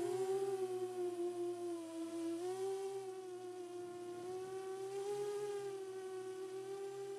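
Motors and propellers of a 7-inch FPV quadcopter giving a steady, whining hum whose pitch dips a little about two seconds in, then rises and shifts slightly as the throttle changes.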